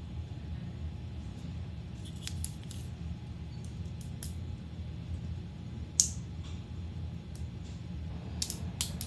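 Squishy stress balls being squeezed and handled: scattered sharp little clicks and crackles, one louder snap about six seconds in, over a low steady hum.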